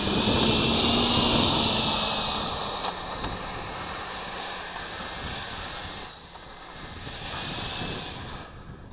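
High-pitched whine of a 105mm electric ducted fan in an RC J-10 jet, run on an 8S pack, at high throttle on its takeoff roll. It fades as the model moves away down the runway, dips about six seconds in and swells briefly near the end.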